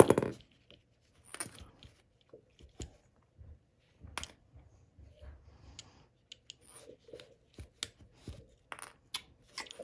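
Quiet hand-handling sounds: scattered light clicks, rustles and scrapes as fingers work a thread through the HomePod Mini's mesh fabric cover and pull it taut. A louder knock comes right at the start.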